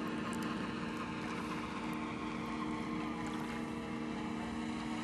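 Electric motors and propellers of a radio-controlled Hughes H-4 Hercules scale model in flight, a steady multi-toned drone that holds its pitch, with low wind rumble on the microphone.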